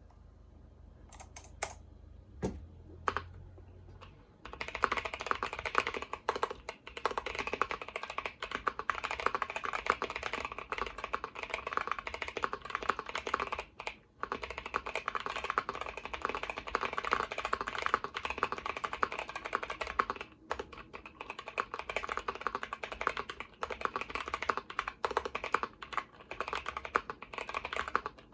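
Typing on a TOFU60 mechanical keyboard with stock Gazzew Boba U4T tactile switches on an aluminum plate, with PE foam and tempest mods. A few separate keystrokes come first, then fast continuous typing starts about four seconds in, pausing briefly twice.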